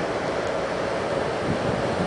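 Steady outdoor rushing noise with an uneven low rumble underneath, the kind made by wind across the microphone or surf.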